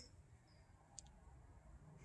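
Near silence: a faint low background hum, with a single soft click about halfway through.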